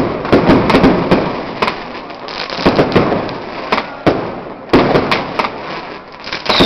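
Aerial fireworks display: a rapid, irregular run of sharp bangs and crackles, each trailing off in an echo.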